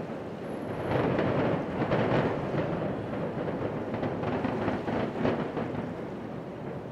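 Concrete high-rise hotel towers collapsing in a demolition implosion: a long rumble with scattered crackles. It swells about a second in and slowly dies away toward the end.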